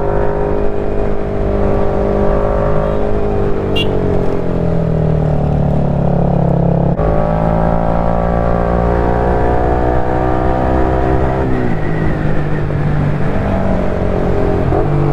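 KTM 390 Duke's single-cylinder engine running on the move, its pitch sliding down and rising again with the throttle, with a sudden change about seven seconds in.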